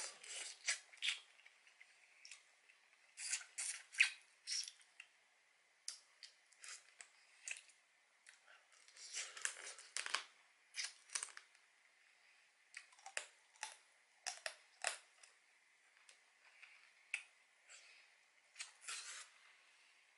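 Close-up eating sounds of soy-sauce-marinated crab: sucking and chewing the meat out of the shell, in bunches of short wet smacks and clicks with quiet gaps between.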